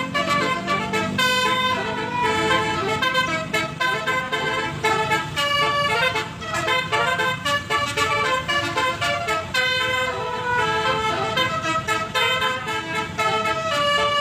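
Basuri telolet horn, a multi-tone electric vehicle horn, playing a tune: a continuous run of bright horn notes changing pitch every fraction of a second, with a brief dip about six seconds in.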